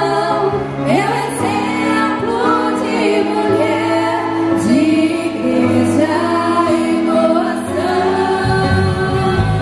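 Live Christian pop-rock band playing, two women singing the lead together over keyboard, guitars, bass and drums. The bass and drums fill out, louder, near the end.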